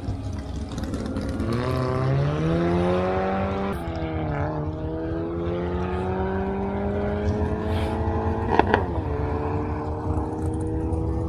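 Drag-racing car's engine accelerating hard down the strip, its pitch climbing and dropping sharply at gear shifts about four seconds in and again near nine seconds. A sharp crack comes with the second shift.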